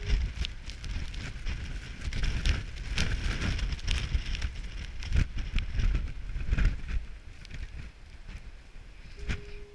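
Storm wind gusting hard across the microphone, a heavy uneven rumble that swells and eases, with irregular crackling ticks over it, in a blizzard.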